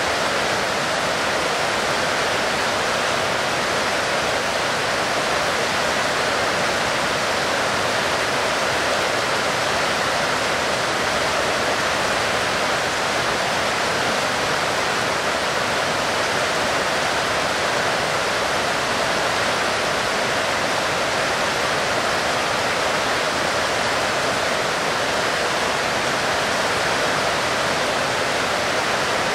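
Heavy rain falling steadily: a dense, even hiss with no single drops or gaps standing out.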